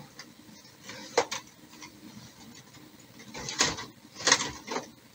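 Plastic knocks and scraping as the developing unit of a Kyocera M5526 colour laser printer is worked loose and slid out of the machine: one sharp knock about a second in, then a cluster of knocks and scrapes in the second half.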